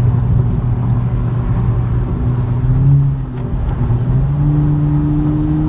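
Car engine droning with steady tyre and road noise, heard from inside the cabin at highway speed. About halfway through the engine note rises, drops briefly, then holds steady at a higher pitch as the car speeds up.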